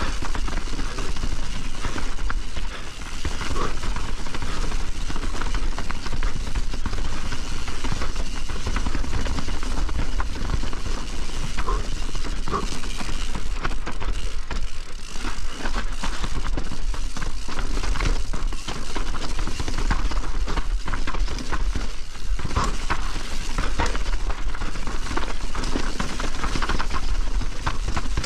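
Privateer 161 enduro mountain bike descending a wet, rough trail at speed: a constant rushing rumble of wind over the microphone under a dense run of tyre noise and clattering knocks as the bike hits rocks and roots.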